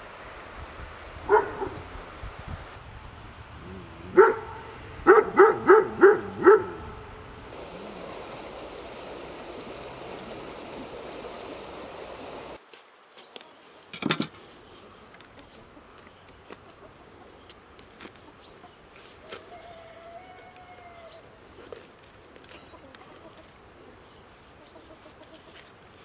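A dog barking: two single barks, then a quick run of five barks. Later a single sharp call stands out over a quieter background.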